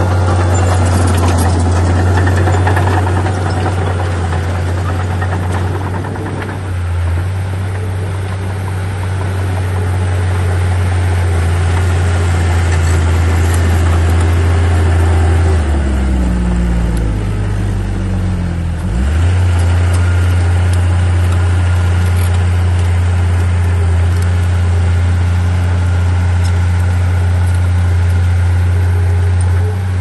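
Komatsu D37P bulldozer's diesel engine running under load with a steady deep drone, with a noisy clatter over the first few seconds. About halfway the engine note sinks over a few seconds, dips sharply, then comes back up and runs steady again.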